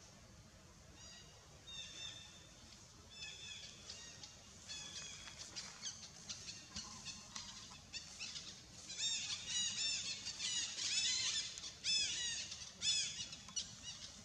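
Young long-tailed macaque squealing: a rapid series of short, high-pitched, arching squeals that start about a second in and grow louder and more frequent from about nine seconds in.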